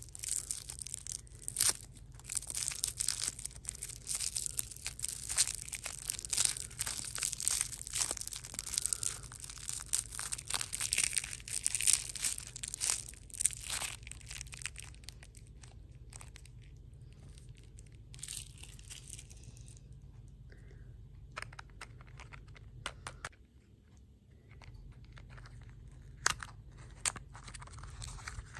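Crinkling, tearing plastic candy and snack wrappers, with some crunching. The crackle is dense for about the first fourteen seconds, then thins out to scattered crinkles.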